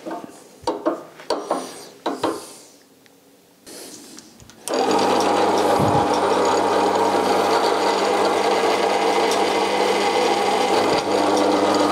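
A few light knocks, then a drill press switched on about a third of the way in, its motor running steadily as the bit works at a sheared-off stud in a cast-iron manifold flange to drill it out.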